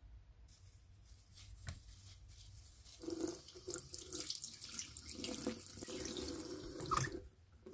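Tap water running into a ceramic sink and splashing over a rubber button pad held in the stream, starting about three seconds in after a few faint clicks and cutting off shortly before the end.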